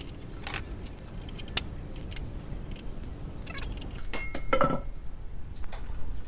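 Handling noise of a plastic motorcycle rear mudguard and small metal hardware: scattered light clicks, a sharp click about one and a half seconds in, and a short ringing metallic jingle about four seconds in.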